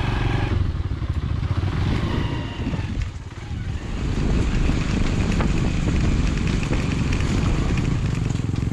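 Motorcycle engine running as the bike rides along a rough dirt track. It drops off briefly about three seconds in, then pulls steadily again.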